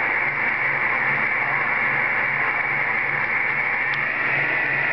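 CB radio receiver hissing steady static, with a faint low pulsing hum beneath it.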